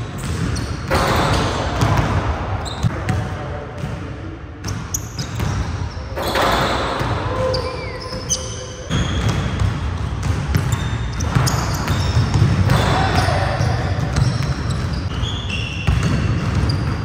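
Basketballs bouncing on a hardwood gym floor, with players' voices and short squeaks.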